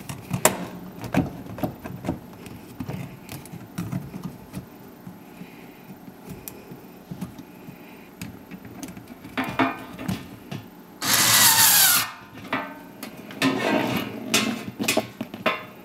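A rubber drain hose being worked onto the plastic outlet of a dishwasher drain pump by hand: scattered knocks and rubbing, with one loud noise lasting about a second around eleven seconds in.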